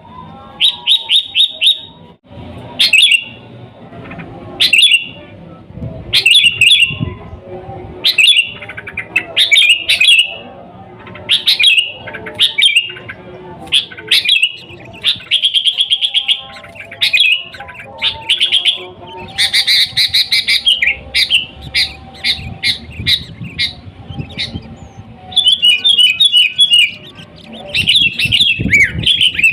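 Sooty-headed bulbul (kutilang) singing loudly and continuously: short phrases of several quick whistled notes, repeated about once a second.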